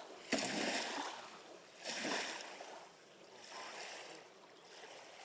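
Small lake waves lapping against the shore in repeated swells, with a sharp knock just after the start.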